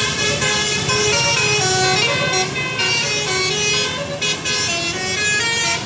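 Bus telolet basuri musical air horn playing a melody of stepped, held notes, loud and unbroken.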